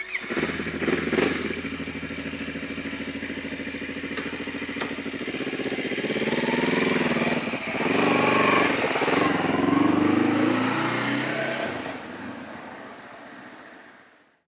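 Yamaha YZF-R25 motorcycle's parallel-twin engine idling steadily, then revving up and down about halfway through, and fading out near the end.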